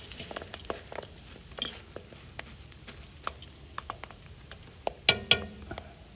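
Scattered sharp pops and clicks of popcorn in a hot cast-iron kazan as the last kernels burst, with two louder knocks close together about five seconds in.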